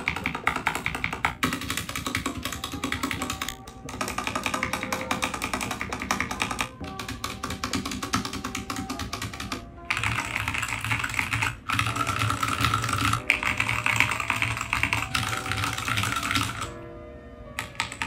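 Fast typing on a Royal Kludge RK84 mechanical keyboard with red linear switches, modded with clipped stabilisers, tape and foam. The keystrokes come in a dense, steady clatter, broken by a few short pauses.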